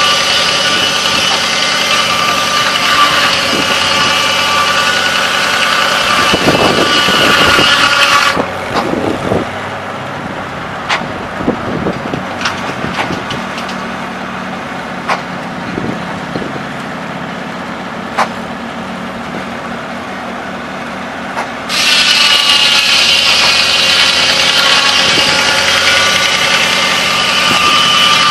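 Circular sawmill blade cutting through a log with a loud, steady high-pitched scream, which stops about eight seconds in. The blade then spins free while the engine driving it keeps running, with a few sharp knocks of wood being handled. About 22 s in the blade bites into the log again.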